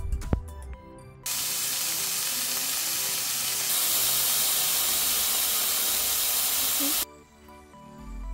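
Slices of beef searing on a hot griddle: a loud, steady sizzle that cuts in about a second in, gets louder midway and stops abruptly near the end. Soft background music plays underneath.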